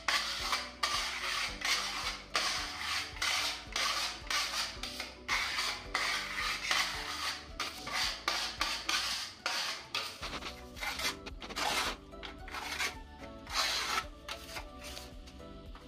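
Putty knife scraping across a wall, spreading filler paste into damaged patches in repeated short strokes.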